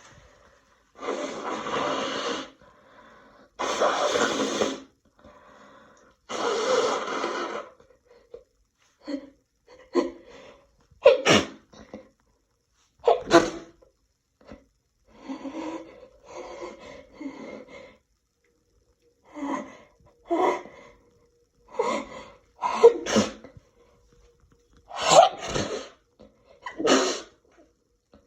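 A person in a sneezing fit: three longer, breathy blasts in the first eight seconds, then a long run of short, sharp sneezes, a dozen or so. The fit comes from an irritated, sensitive nose that had been blocked all day.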